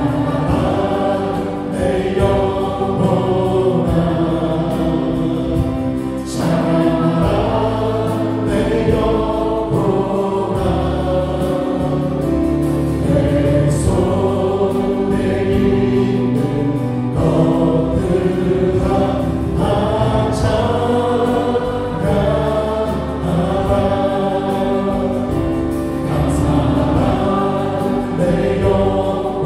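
A Korean worship song sung by many voices together, backed by a live band of Yamaha Montage 8 keyboard, drums and bass guitar, with a cymbal crash every six or seven seconds.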